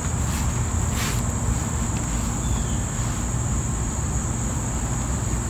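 Steady high-pitched insect chorus, with a low rumble on the microphone underneath and a single click about a second in.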